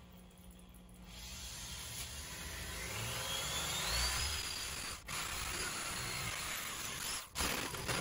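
Corded electric drill running a hole saw through the sheet-metal skin of a school bus door. It starts about a second in and builds up, with a rising whine partway through and two brief breaks in the cutting.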